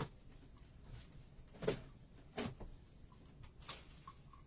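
A few faint, brief knocks and rustles of cardboard shipping boxes and packaging being handled, over low room noise.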